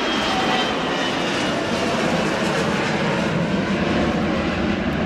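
Bombardier Sentinel R1's twin Rolls-Royce BR710 turbofans at takeoff power as the jet climbs away after lift-off: loud, steady jet noise with a high whine that fades in the first second or two, the sound turning deeper and more rumbling from about three seconds in.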